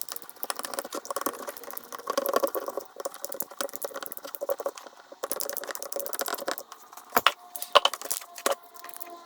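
Rapid clicks and rattles of screws, a Torx driver and plastic housing parts as a Dremel 4200 rotary tool is unscrewed and taken apart, sped up.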